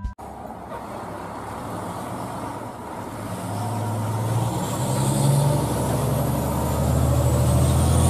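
Aerial ladder fire truck's engine running as it pulls out and drives past, growing steadily louder.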